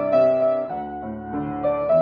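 Grand piano played solo: a melody line over a held accompaniment, a new note struck about every half second and each left ringing.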